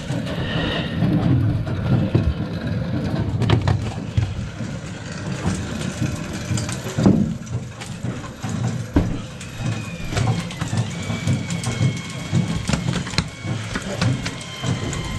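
A steady low hum of the boat's machinery, with scattered knocks and clatter of fish and gear being handled on deck. A faint, thin whine comes in about two-thirds of the way through and holds.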